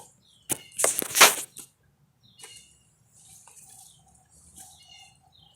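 Handling noise from the recording tablet being picked up and turned: a loud rustling, scraping rub against the microphone starting about half a second in and lasting about a second.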